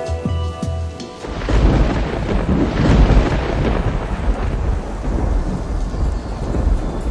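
Music gives way about a second in to thunder rumbling over steady heavy rain, the rumble swelling a couple of seconds later and then easing.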